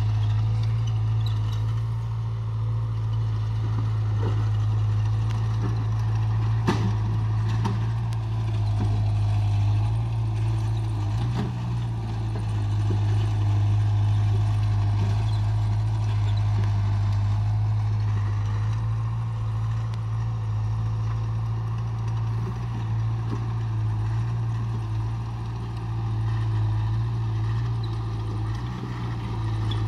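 A steady, low engine hum, like a vehicle running, with one faint click about seven seconds in.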